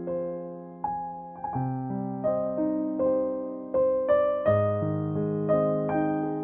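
Background music: a soft piano or electric-piano tune with notes struck about every half second to second, each ringing and fading.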